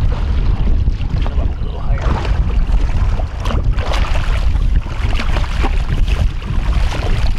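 Water splashing as a hooked fish thrashes at the surface beside the boat and is scooped into a landing net, in short irregular splashes. Under it runs a steady low rumble of wind on the microphone and the boat.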